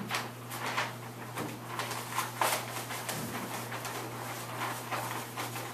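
A large sheet of paper rustling and crinkling in irregular bursts as it is handled and rolled up, over a steady low hum.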